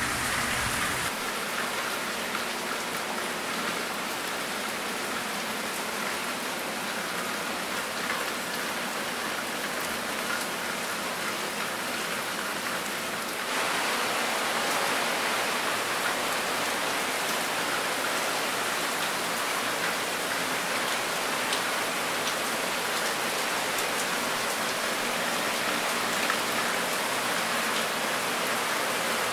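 Steady rain from Hurricane Irma as it approaches, an even hiss of falling rain that turns heavier and louder about halfway through.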